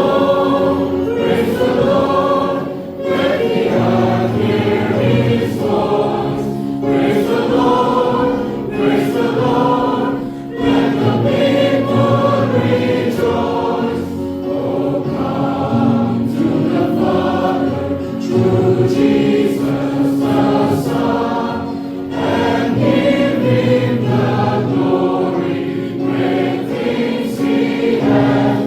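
A choir singing a hymn, with long held low accompanying notes underneath.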